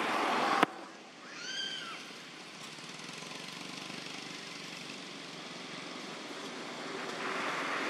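A loud noisy background cuts off abruptly with a sharp click about half a second in. Soon after comes a single short call that rises and falls in pitch, from an animal. Steady outdoor hiss follows and grows louder near the end.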